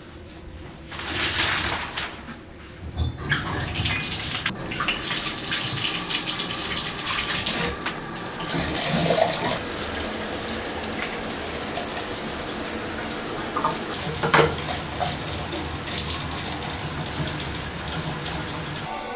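Shower running: water spraying steadily from the showerhead onto tile, with a few brief knocks along the way.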